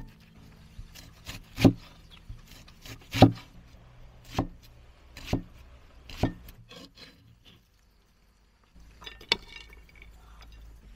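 Cleaver chopping an onion on a round wooden chopping block: sharp knocks of the blade striking the wood, about one a second. A short pause follows, then one more knock with a brief clatter near the end.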